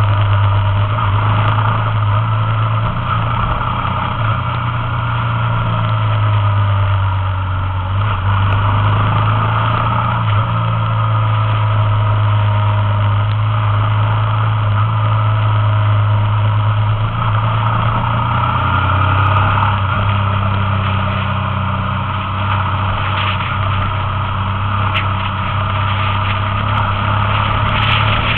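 Engine of a motorbike being ridden at a steady cruise, a constant drone mixed with wind and road noise, its pitch dropping slightly about two-thirds of the way through.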